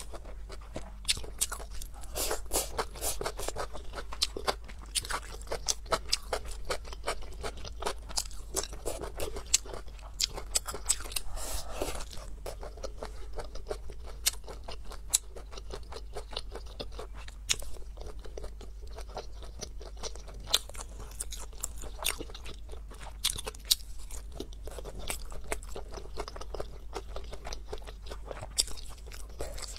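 Close-miked eating: braised pork belly and enoki mushrooms being bitten and chewed, with many small crunches and sharp mouth clicks.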